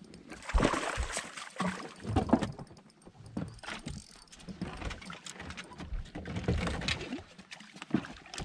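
Water splashing at the side of a boat, with irregular knocks and thumps on the deck and hull, as a hooked smallmouth bass is landed by hand.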